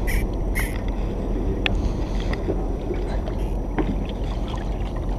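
Steady low rumble of a small boat on the water, with a few light clicks and taps scattered through it.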